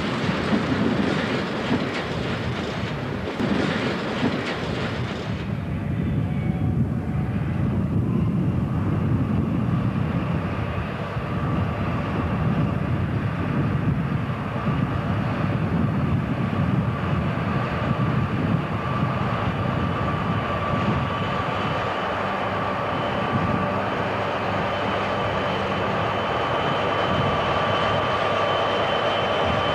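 Two DR V100 diesel-hydraulic locomotives working in multiple at the head of a tank-wagon freight train, their diesel engines running steadily. There is a rushing noise for the first five seconds or so, and a steady high whine comes up from about two-thirds of the way in.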